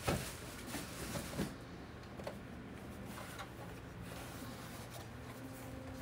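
Handling sounds from a box fan being moved and turned over on a cloth: a few soft knocks in the first second and a half, then faint rubbing and small clicks.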